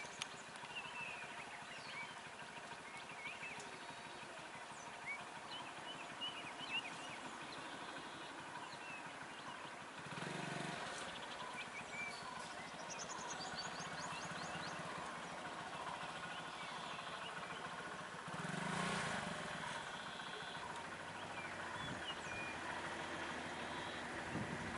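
Outdoor roadside ambience with short bird chirps over a steady background. Vehicle engine noise swells briefly about ten seconds in and again, louder, a little before twenty seconds.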